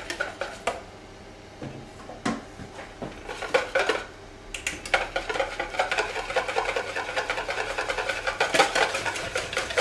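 Whisk beating egg yolks in a bowl as the vinegar reduction is mixed in for hollandaise sauce: a few scattered clinks, then rapid, steady whisking strokes from about halfway in.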